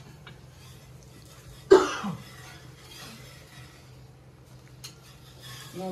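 A single loud cough about two seconds in, over a steady low hum.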